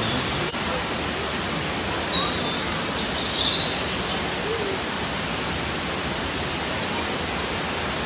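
Looking Glass Falls, a tall waterfall, pouring steadily down a rock face: a steady, even rush of falling water. A few short high chirps cut through the rush about two to three and a half seconds in.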